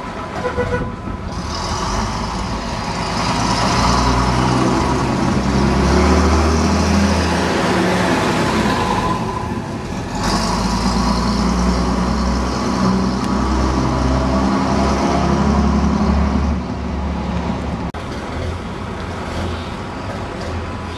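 Diesel engine of a preserved single-deck bus running under load as it pulls away and drives past close by. The sound dips briefly about a second in and again near the middle.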